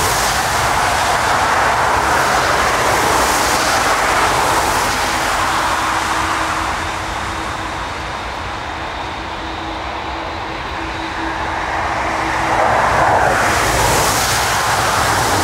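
Airbus A380 turbofan engines running as the airliner rolls out after landing and turns off the runway: a steady jet rumble and hiss that eases in the middle and swells again near the end as the aircraft swings broadside.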